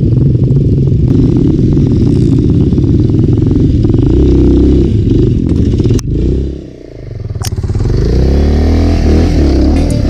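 Off-road motorcycle engine running. About six seconds in there is a sharp click, and the engine note briefly drops away, then climbs again as it revs back up.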